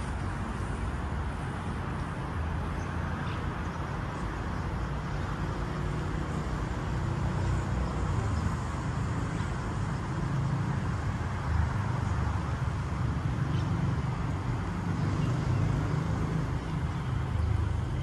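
Steady rumble of road traffic, with no single vehicle standing out; it grows a little louder in the second half.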